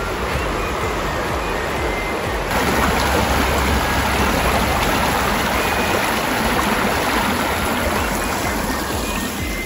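Shallow river water running steadily over rocks and fallen branches, a rushing hiss that grows louder about two and a half seconds in, with soft background music underneath.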